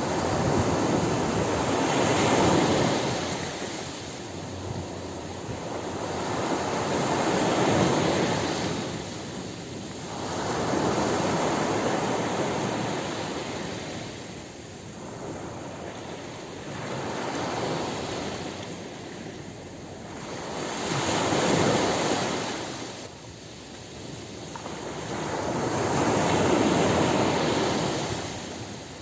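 Ocean surf washing onto a beach, swelling and fading in about six waves, roughly one every five seconds.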